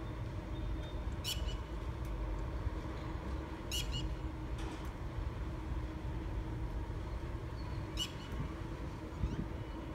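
Outdoor background noise: a steady low rumble with three brief high chirps or squeaks, about one, four and eight seconds in.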